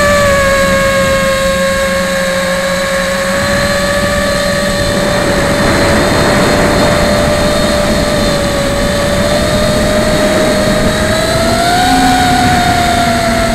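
Martian 2 quadcopter's motors and propellers whining steadily in flight, heard close up from on board, with a rush of air noise underneath. The pitch climbs slightly about twelve seconds in, then dips again.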